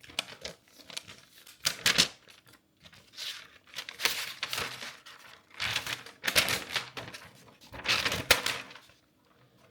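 Unboxing an Apple Magic Keyboard: packaging and wrapping being handled, rustling in several short bursts with sharp clicks and light knocks between them.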